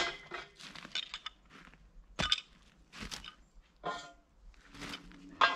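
Metal guide rail for a chainsaw mill being handled and set in place on a log: a series of separate knocks and clanks, about one a second, several ringing briefly.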